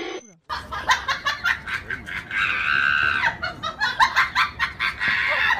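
A person giggling in quick, high-pitched bursts, with one longer held squeal about two and a half seconds in.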